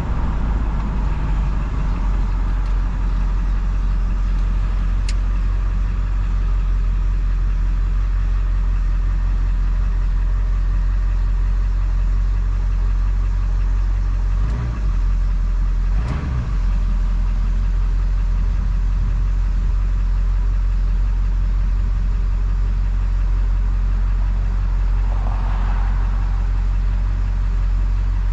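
2000 Ford F-350's 7.3 L Power Stroke turbo-diesel V8, muffler deleted and straight-piped, running with a steady low drone. The drone dips briefly twice about halfway through.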